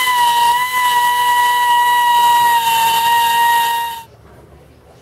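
Stanley pneumatic die grinder with a grinding stone running at speed: a steady high whine over the hiss of exhausting air. The whine cuts off abruptly about four seconds in.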